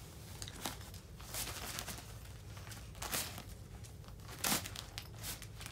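Plastic packaging crinkling and rustling in scattered crackles as a memory foam travel pillow is handled and pulled out of its wrapping.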